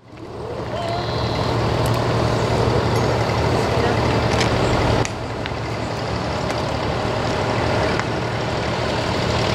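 Tractor engines running in the distance as a line of tractors approaches: a steady low hum over a wash of noise. The sound fades in at the start and drops abruptly about five seconds in.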